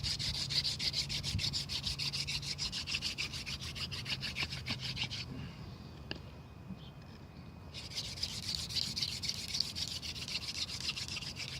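Friction-fire hand drill of elder and clematis: a wooden spindle spun back and forth between the palms against the hearth board, a fast rasping rub of wood on wood. It stops for about two seconds in the middle, then starts again. This is the gentle warm-up stage of the drilling.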